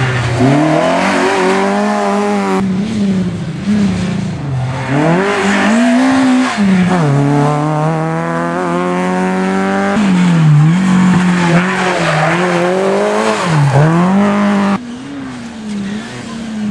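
Rally car engines revving hard through a hairpin, one car after another. The pitch climbs as each car accelerates and changes gear, then drops as it backs off. The sound jumps abruptly from one car to the next about three times.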